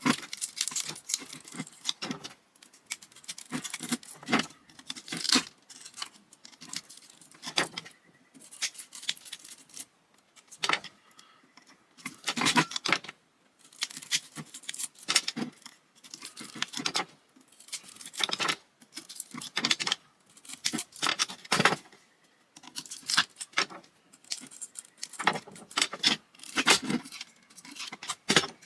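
Metal parts and hand tools clinking and rattling in irregular clusters as a ceiling fan is dismantled.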